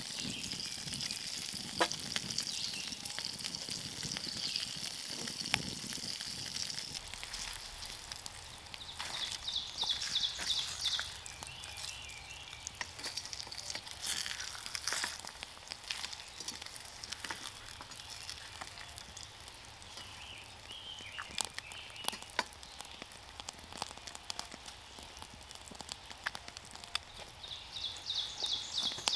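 Food frying in a pan over a wood fire: a steady sizzle with scattered pops and crackles, the hiss strongest in the first several seconds.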